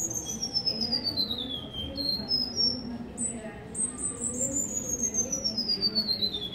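Cuban bullfinch (negrito) singing two songs, each a fast run of high notes sliding down in pitch over about two seconds. A few short, separate notes come between them, about two seconds in.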